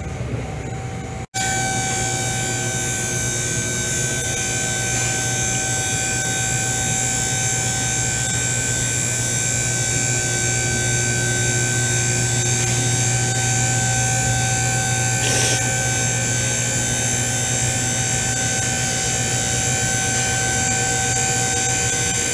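Electric motor of a vehicle lift's hydraulic pump running steadily, a constant hum with a high whine over it, as the car is raised. A single click comes about 15 seconds in.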